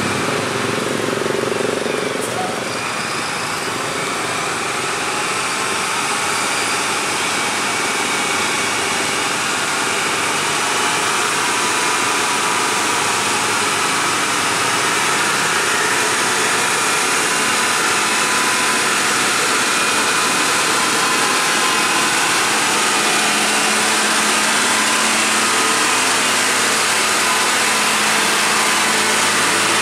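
UD Quester tractor-trailer's diesel engine pulling a loaded trailer up a steep grade, growing louder as the truck approaches and passes close by.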